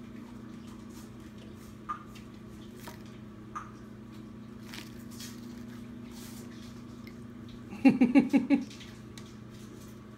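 Small clicks and handling noises of a hollow chocolate egg being broken apart, over a steady low hum. About eight seconds in comes a short burst of six or seven rapid voiced pulses, the loudest sound.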